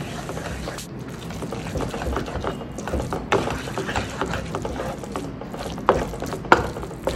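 Wooden spatula stirring and scraping scrambling eggs and onion-tomato masala around a nonstick frying pan, the wet mixture squelching, with a few sharp knocks of the spatula against the pan, the loudest near the end.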